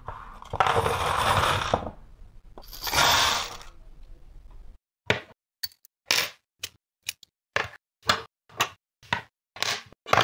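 Clear plastic parts bag rustling twice, then a quick string of about ten short metallic clatters as Meccano steel strips and red metal plates are set down on a table, each clatter cut off sharply.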